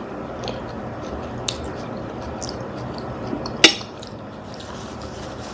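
Close-miked wet chewing and squishing of spaghetti and meatballs being eaten, with a few small clicks and one sharp, loud clack about three and a half seconds in.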